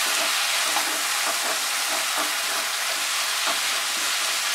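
Shredded chicken and masala sizzling in a non-stick kadai on high flame, with a wooden spatula stirring and scraping through it in repeated strokes under a steady frying hiss.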